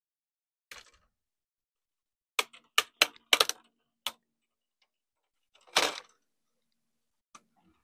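Plastic clips of a laptop's LCD bezel clicking and snapping loose as the bezel is pried off: one click under a second in, a quick run of sharp snaps around three seconds, and a longer crackling snap near six seconds.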